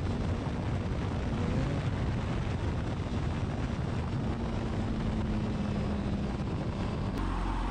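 Honda CBR1000RR sportbike's inline-four engine running at highway speed, mixed with a steady rush of riding wind on the microphone. Near the end a click marks a change to a steadier, lower hum.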